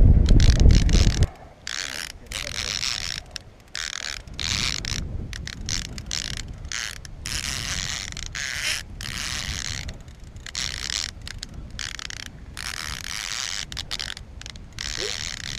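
Fishing reel being cranked in short repeated bursts, a little more than one a second, its gears whirring with each turn as a lure is worked back. Wind and boat rumble on the microphone in the first second.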